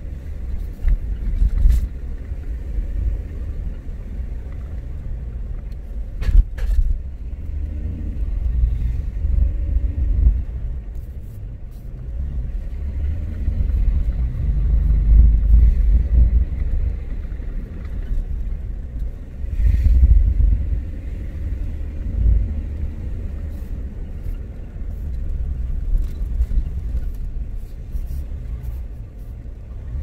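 A car driving. It makes a low rumble that swells and fades, with a few sharp knocks, the loudest about six seconds in.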